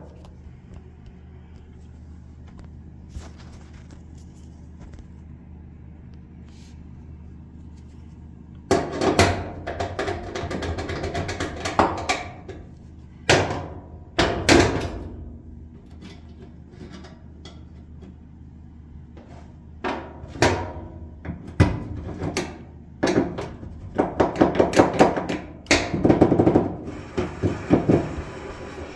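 Clanks, clicks and rattles of hand work on the metal parts of an opened clothes dryer as a new drum support roller is fitted, coming in bursts that are busiest near the end, over a steady low hum.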